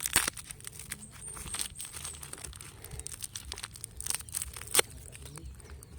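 Packaging being handled and crinkled during an unboxing: irregular rustling and crackling with sharp clicks, loudest right at the start and again near the end.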